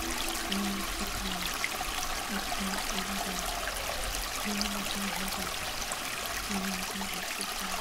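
Steady running water like a gentle trickling stream, with faint short low notes now and then.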